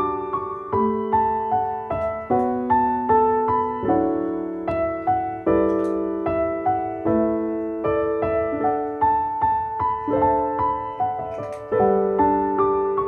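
Background piano music: a melody over chords, each note struck and then fading.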